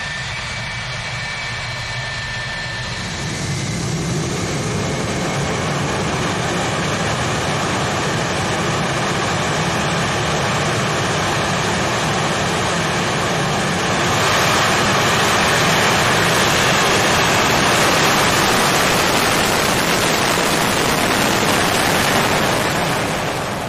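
Twin J79 turbojets of an RF-4E Phantom II: steady jet noise with a high whine that fades in the first few seconds. It grows louder about four seconds in and again more sharply about fourteen seconds in, the jet accelerating down the runway on afterburner.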